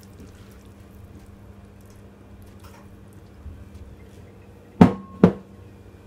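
Two sharp clinks of kitchen glassware and a serving spoon, a little under half a second apart, the first with a short ring, as stuffing is scooped from a glass bowl into a glass baking dish. A faint steady hum runs underneath.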